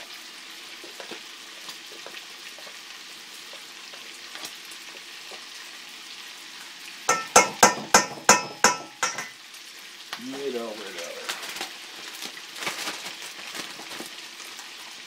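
Bacon sizzling in a cast-iron skillet throughout, with a quick run of about seven sharp taps a little before halfway as a metal spoon knocks sour cream off against a stainless steel bowl.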